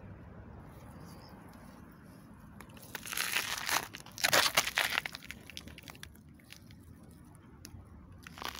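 Radishes pulled by hand from garden soil: two bursts of rustling, crackling leaves and roots tearing free, about three seconds and four and a half seconds in, with a few faint clicks afterwards.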